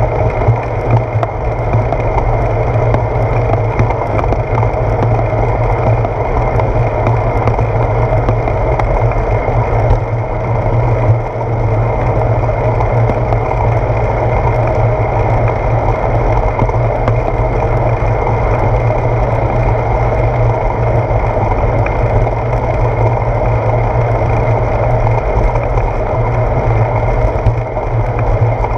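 Steady wind noise and road vibration picked up by a handlebar-mounted GoPro Hero 4 on a moving bicycle, a loud, even low-pitched noise with no breaks.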